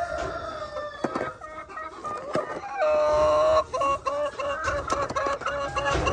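Chickens clucking and calling. There is one loud, long, level call about three seconds in, followed by a quick run of short repeated clucks.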